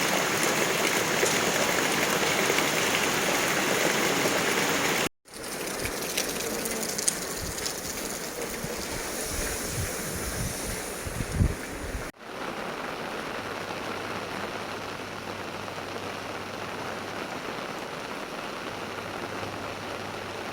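Steady rain falling, heard as three separate takes cut together, with a few sharp taps in the middle take.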